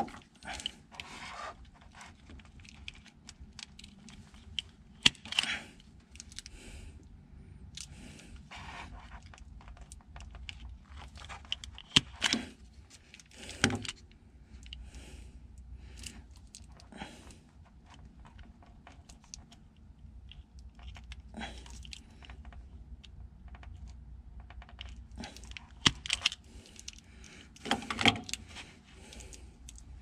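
Small metal connector pins and a plastic wiring connector being handled by hand: irregular light clicks and clinks with brief scraping rustles, sharpest about 5, 12 and 26 seconds in. A faint low hum runs underneath.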